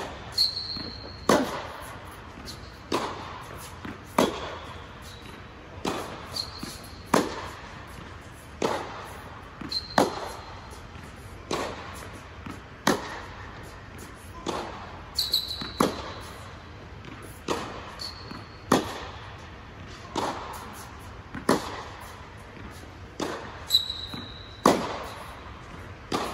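Tennis ball struck by rackets in a steady baseline rally, a sharp pop about every one and a half seconds, echoing in a large indoor tennis dome. Short sneaker squeaks on the court come between some of the shots.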